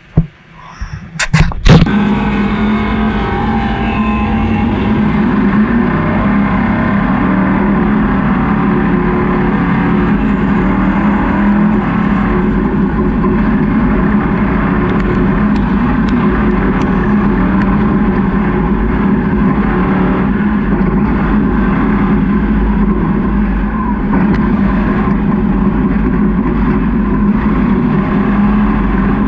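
A few sharp knocks about a second in, then a Super Stock off-road race truck's engine running loud and steady under sustained load, its drone wavering only slightly.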